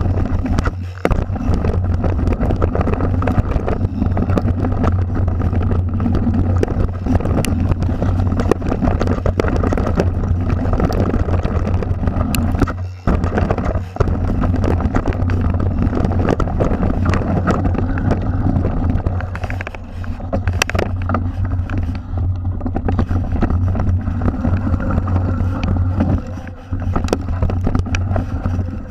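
Wind buffeting the camera microphone during a mountain bike ride, a steady low rumble over the hiss of knobby tyres on a dirt singletrack, with frequent small rattles and knocks from bumps in the trail.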